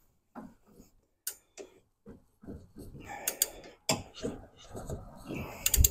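Hand ratchet clicking on the pulley bolt of a small-block Chevy engine as it is worked to break the bolt loose, with the engine held from turning by the car being in gear. Irregular clicks and metal scrapes, with a cluster of sharper clicks near the end.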